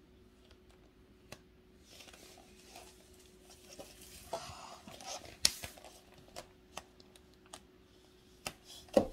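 A Horsfield's tortoise biting and tearing crisp curly endive leaves: irregular small snaps and crunches, loudest about halfway through and again near the end.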